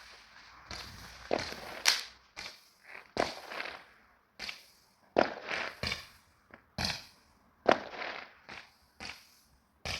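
Fireworks going off: a dozen or more sharp bangs and pops at irregular intervals, each fading out in a short echoing tail.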